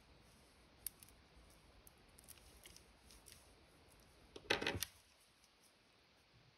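Faint handling of a piece of sandpaper in gloved hands: a light click about a second in, a few small ticks, then a short rustling scrape a little past halfway as the paper is picked up and folded.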